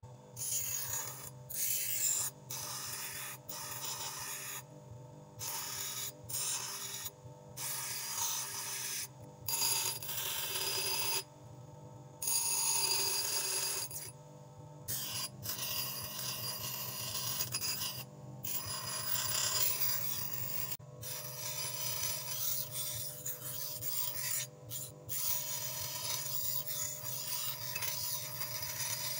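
Crown bench grinder running with a steady motor hum while a flat metal arrowhead piece is pressed against its stone wheel, throwing sparks. The harsh grinding hiss comes in repeated passes of a second or a few seconds, breaking off briefly each time the piece is lifted from the wheel.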